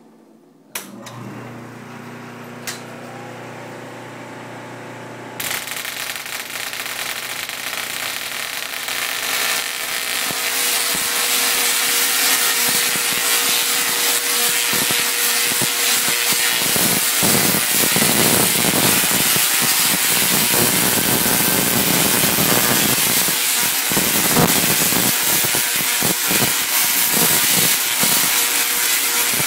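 Tesla coil being switched on: a low steady hum starts about a second in, then about five seconds in the coil starts firing, its arcs giving a loud crackling buzz that grows louder for several seconds and then holds steady. Later the arcs strike a metal rod held near the toroid.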